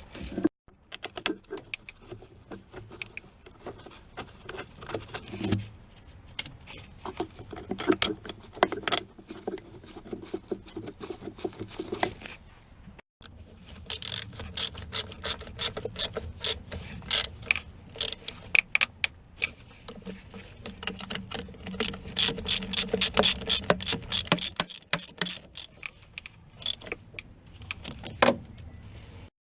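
Ratchet wrench clicking in quick runs of strokes as bolts are worked during a clutch job, with short pauses between runs.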